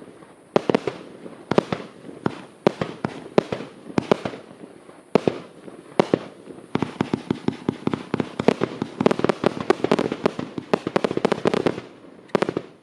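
Sky Candy XL multi-shot firework cake firing shot after shot, its shells bursting in sharp bangs with titanium breaks among them. The shots come quicker and denser over the second half into a rapid finale, and after a brief gap there are two last bangs near the end.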